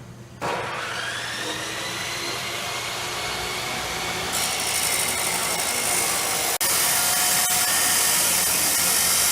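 Pneumatic DA (dual-action) sander starting up, its whine rising and then holding steady as it runs. A harsher hiss joins about four seconds in, and the sound cuts out for an instant past the middle before carrying on.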